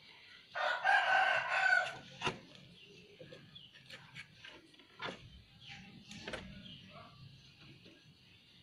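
A rooster crows once, a little over a second long, starting about half a second in. After it come scattered light clicks and knocks of plastic scooter panels and wiring connectors being handled.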